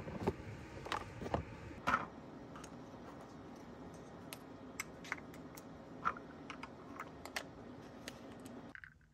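Light clicks and taps of hands handling hard plastic gear, a portable espresso maker being opened, a coffee capsule fitted and its parts screwed together, over a faint steady hiss. A few louder knocks come in the first two seconds, and the background hiss cuts off shortly before the end.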